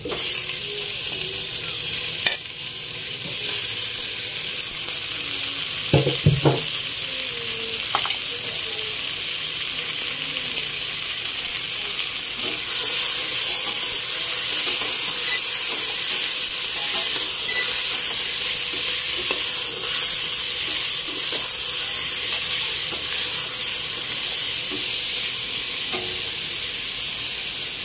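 Pieces of fried chicken sizzling hard in hot oil with sautéed garlic, onion and ginger as they are stirred in the pot. The sizzle starts abruptly and holds steady, with a few knocks of the stirring utensil against the pot.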